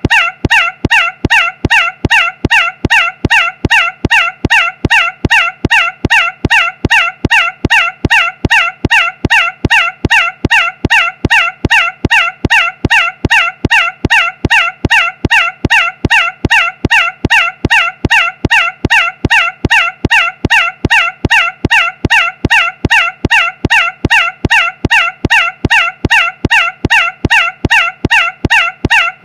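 One short, nasal, pitched sound looped over and over without a break, about two and a half repeats a second, each repeat identical.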